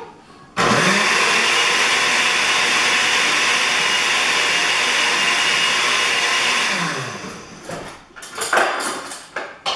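Countertop blender blending a milkshake of milk, banana, oats and raspberries: the motor starts up about half a second in, runs steadily and loud for about six seconds, then spins down. A few short sharp sounds follow near the end.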